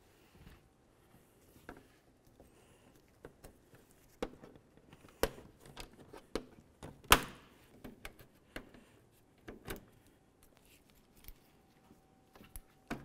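Plastic push clips and trim being pried out with a metal pick or trim tool: scattered sharp clicks and knocks of tool on plastic, the loudest about seven seconds in.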